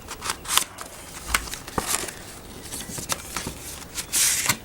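Paper and plastic packaging being handled and opened by hand: scattered crinkles and small taps, with a longer rustle near the end.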